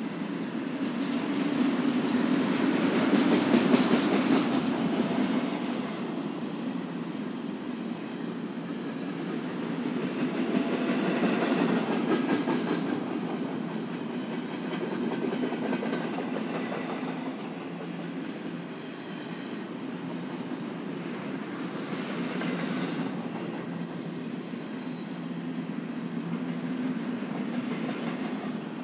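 Freight cars of a BNSF intermodal train rolling past, steel wheels clicking over the rail joints, with a steady rumble that swells louder a few times.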